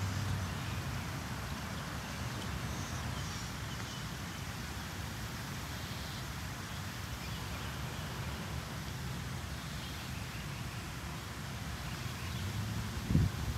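Outdoor ambience: a steady low rumble with a few faint high chirps, and wind starting to buffet the microphone near the end.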